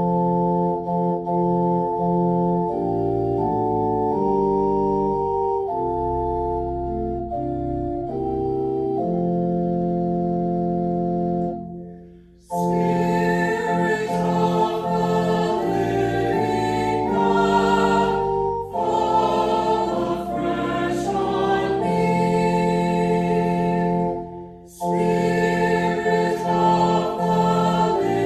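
Organ playing slow, held chords. About twelve seconds in, a choir joins in singing over it, with brief pauses between phrases.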